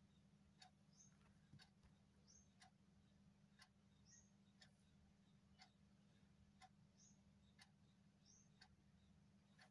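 Near silence: a faint low room hum with a soft, regular tick about once a second, each tick paired with a faint high chirp.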